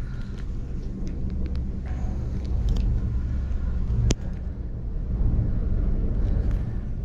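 Low, uneven rumble of wind buffeting the microphone during an open chairlift ride, with one sharp click about four seconds in.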